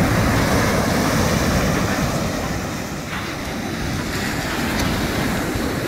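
Surf breaking and washing up a sandy beach, with wind noise on the microphone.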